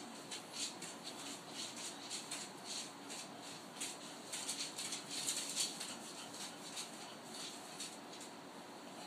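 Bulldog puppies scrabbling about in a wooden whelping box, their claws and paws scratching and rustling on the wood and bedding in quick, irregular scratches, several a second.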